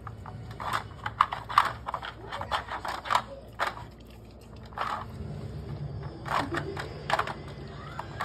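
Hard plastic clicking and clattering, irregular and in quick runs, as a dog noses and paws at a plastic spinning treat puzzle, turning its lids to get at the snacks.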